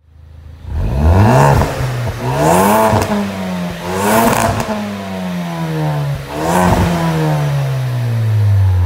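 Ford Focus ST's 2.0-litre turbocharged four-cylinder, fitted with an aftermarket induction kit, revved at standstill: four sharp blips that rise and fall, with a hiss at the top of each, the last one dropping away slowly.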